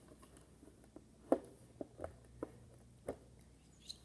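Plastic Lego bricks being handled, with about six short clicks and knocks, the loudest about a third of the way in.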